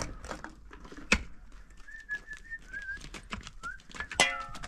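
A hand tool digging dry, stony soil, with sharp strikes about a second in and again, loudest, just after four seconds. Between the strikes a faint, wavering bird call can be heard.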